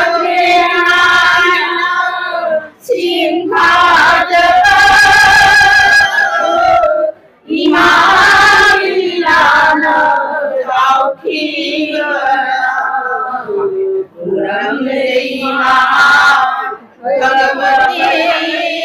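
A chorus of women singing a devotional chant in long held phrases with short breaks between them, accompanied by clashing brass hand cymbals.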